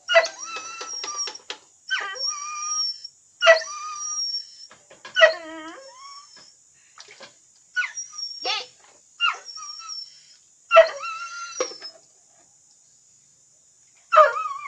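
Dogs whining and yelping, each call a sharp yelp drawn out into a high whine, repeating every second or two with a short lull near the end. It is eager begging while their food is dished out.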